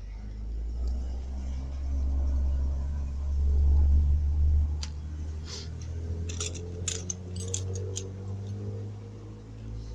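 A motorcycle front brake master cylinder and an Allen key being handled, giving a run of sharp, small metallic clicks and clinks in the second half. A steady low hum runs underneath throughout.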